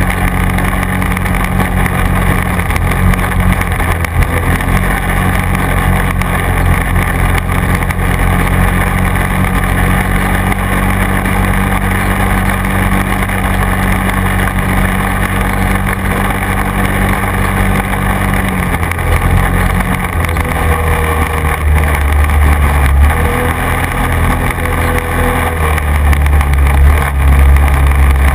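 Quad bike (ATV) engine running steadily under way; about two-thirds of the way through the engine note drops lower and gets louder.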